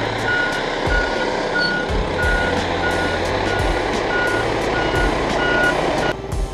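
A heavy construction vehicle's reversing alarm beeping steadily, one short high beep about every two-thirds of a second, over engine noise. The beeps and noise cut off sharply about six seconds in.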